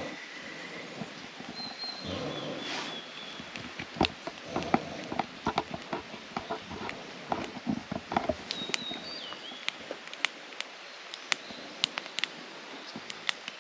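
Irregular sharp clicks and knocks, thickening from about four seconds in, with a few short high bird chirps in the background.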